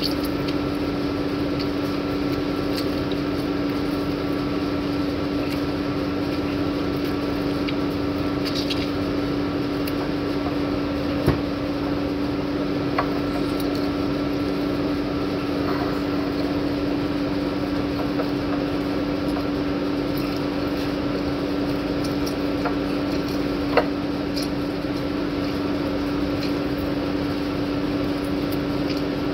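A steady machine hum on one low held pitch, unchanging throughout, with three short clicks.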